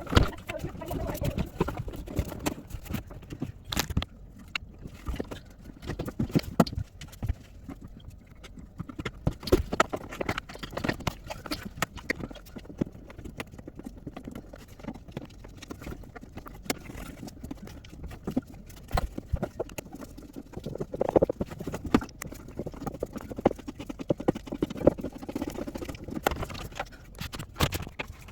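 Irregular clicks, knocks and clatter of hand tools and parts being handled as the suspension dampers are fitted under a front-load washing machine.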